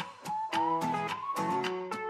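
Background music: a light plucked-string melody over a steady beat.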